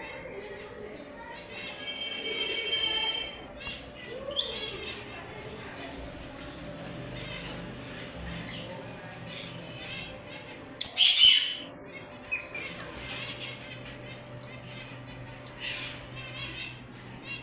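Yellow Fischer's lovebirds chirping: a quick run of short, high chirps, several a second, with a louder burst of calls about eleven seconds in.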